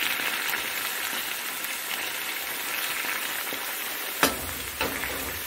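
Molten sugar caramel in a saucepan sizzling and bubbling steadily where cold water has just been poured onto it. About four seconds in there is a single sharp knock.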